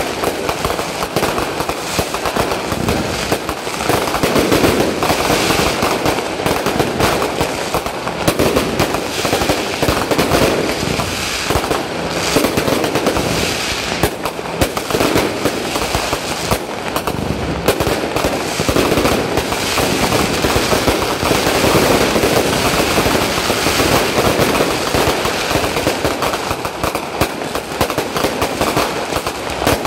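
Aerial fireworks going off in a continuous barrage: a dense, unbroken run of bangs and crackles with no pause.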